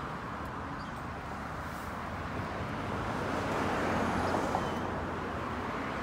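Steady outdoor background noise: a hiss of road traffic over a low, even hum, swelling slightly midway.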